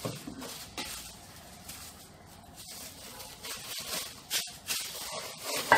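Clear plastic wrapping crinkling and rustling as a wrapped item is handled and unwrapped, with a few sharper clicks and knocks.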